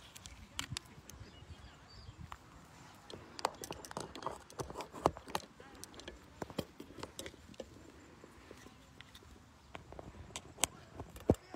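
Scattered clicks, taps and knocks of a microphone being handled and swapped on a phone, quiet and irregular, bunched in the middle and again near the end.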